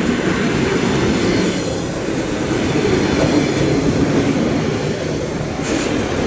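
EP2D electric multiple unit running past, its wheels rolling on the rails with a steady, loud rumble.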